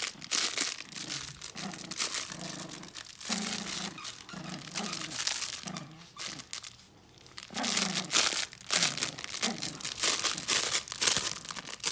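Crinkly paper inside a plush dog toy crackling as a puppy chews and tugs at it, mixed with short low puppy play growls.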